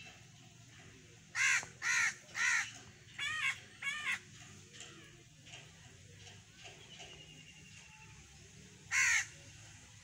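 A bird giving a quick run of six short, harsh caws, then one more caw near the end.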